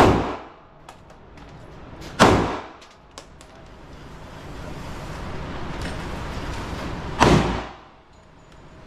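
Three gunshots on a firing range: one right at the start, one about two seconds later and one about seven seconds in, each with a short ringing tail.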